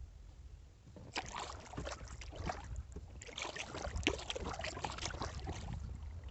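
Kayak paddle dipping into the lake, two strokes of splashing and dripping water about a second in and again near the middle, over a low steady rumble.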